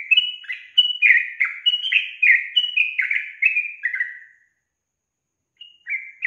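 Yellow-vented bulbul singing: a rapid run of short chattering notes, about three a second, each dipping in pitch, for about four seconds, then a pause and a brief second phrase near the end.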